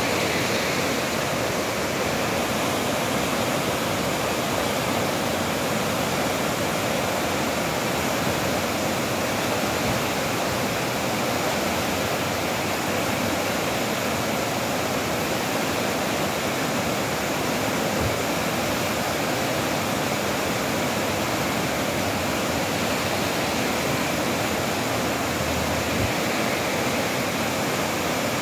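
Muddy floodwater rushing steadily down a concrete-lined wadi channel, a wadi in spate after thunderstorm rain.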